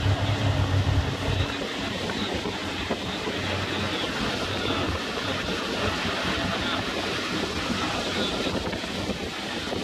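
Motorboat running at speed: a low engine hum under the steady rush of water and wind buffeting the microphone, the hum strongest in the first second and a half.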